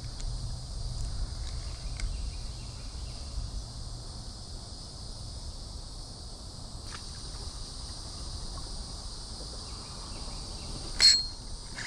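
Steady high-pitched insect drone over a low rumble of wind, with a sharp click near the end.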